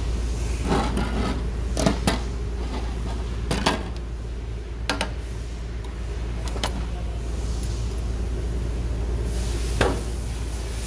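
Plastic cap and pour spout of a metal fluid can being twisted and pried open by hand: a string of separate clicks, snaps and knocks, the loudest about two seconds in and near the end. There is a steady low hum under it.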